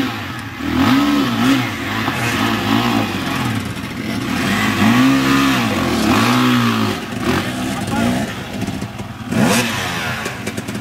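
Dirt bike engines revving up and easing off again and again as the bikes ride the enduro circuit, the pitch climbing and falling every second or two.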